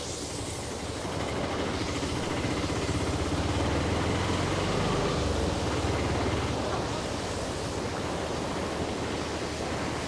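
Auto rickshaw engine running, with a steady rush of wind and road noise over it.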